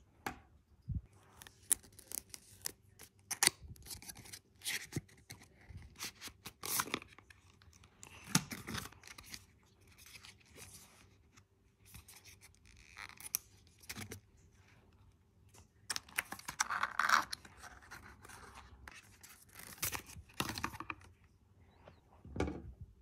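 Handling and opening the cardboard and paper packaging of an Apple MagSafe charger: irregular scraping, rustling and crinkling with scattered clicks and taps.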